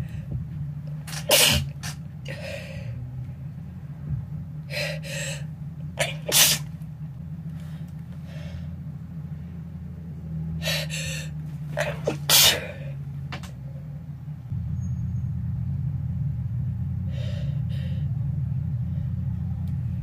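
A person sneezing again and again in a fit set off by household dust, each sneeze sharp and sudden, with quicker breaths between. A steady low hum runs underneath and grows louder about two-thirds of the way through.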